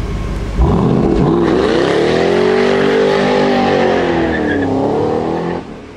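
Ford Shelby GT500's supercharged V8 revving hard in a burnout, its rear tyres spinning and squealing, in a road tunnel. Starting about half a second in, the revs climb, dip briefly, hold high, dip again and climb once more, then the sound cuts off abruptly near the end.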